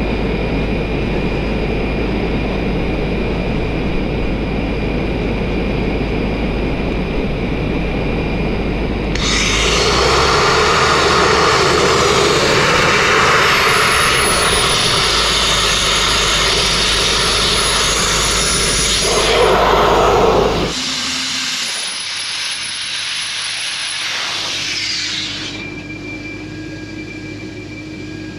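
Sandblasting nozzle blasting abrasive at a stone wall: a steady hissing roar of air and grit that grows louder and fuller about a third of the way in. About two-thirds through it drops away sharply, leaving a thinner hiss that fades quieter near the end.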